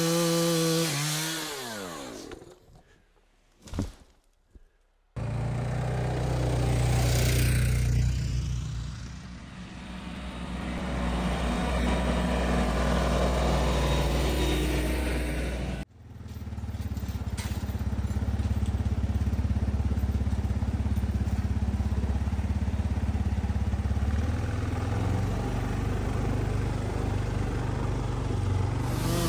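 Kioti NX-series diesel tractor engine running steadily, with a brief sudden dropout about halfway through. Before it, in the first two seconds, a small engine's pitch falls as it winds down, then there are a few seconds of near quiet.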